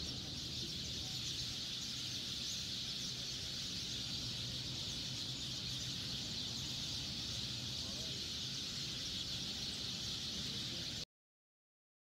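Steady outdoor ambience from the handheld site footage: an even high-pitched hiss over a low hum, cutting off abruptly about eleven seconds in.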